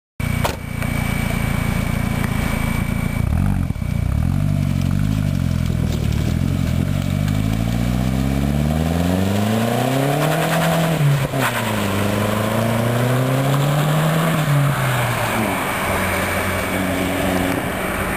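A 1999 Audi TT 1.8T's turbocharged four-cylinder engine, on a stainless-steel NAP cat-back exhaust, accelerates with rising pitch for several seconds. About eleven seconds in the throttle is lifted: the pitch drops sharply, with a sharp click. It then pulls again and falls away as the car drives off.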